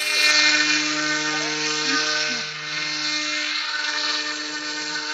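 Electric motor and propeller of an RC F-18 foam jet model whining steadily in flight, with a wide rushing hiss, loudest about a second in as the plane passes close.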